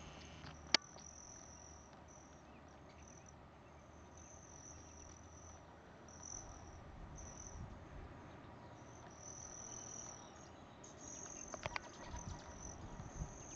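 Faint, high-pitched trilling of hummingbird wings, coming and going in irregular bursts of under a second to about a second. There is one sharp click about a second in and a few clicks near the end.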